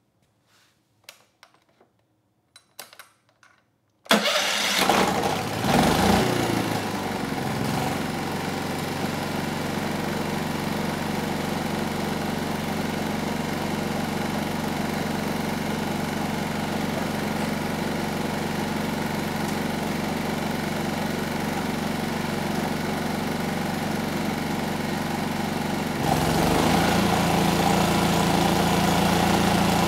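A few faint clicks, then about four seconds in the Yamaha EF3000iSE inverter generator's single-cylinder four-stroke engine starts at once, revs up and settles into a steady idle. Near the end it speeds up and runs louder as a 1500-watt space-heater load comes on, the generator starting right up and holding its output with a newly replaced inverter module.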